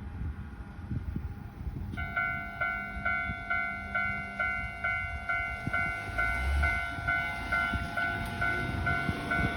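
Japanese level-crossing warning bell starting to ring about two seconds in, an electronic ding repeating evenly a little over twice a second, the signal that a train is approaching and the crossing is closing. Low wind rumble on the microphone lies underneath.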